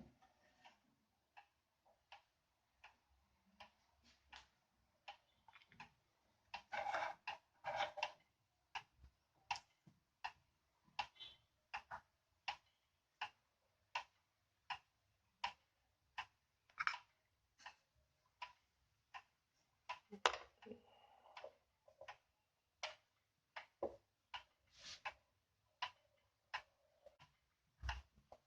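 1880s Concordia Vienna regulator wall clock ticking faintly and steadily, about one tick every two-thirds of a second, with a few brief louder noises in between.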